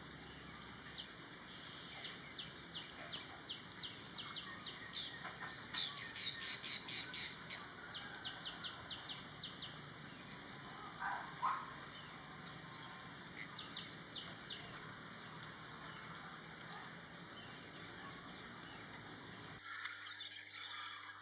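Common iora calling: a string of short, high chirps and sweeping notes, with a quick run of repeated notes about six seconds in.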